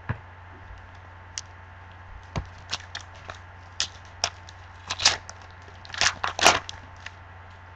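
Foil trading-card pack wrapper crinkling and tearing as it is opened by hand, a scattered run of sharp crackles that grows louder near the end.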